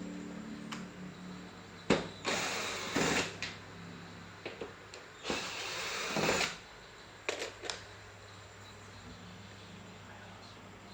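Workbench handling noises as an LCD TV is being opened up: a sharp click, two scraping, rustling sounds about a second each, then a few light knocks, over a steady low hum.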